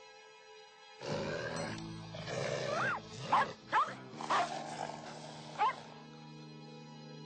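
A dog and a wolf growling and snarling over soft film-score music, with four short sharp barks between about three and six seconds in. The animal sounds stop about six seconds in, leaving the music.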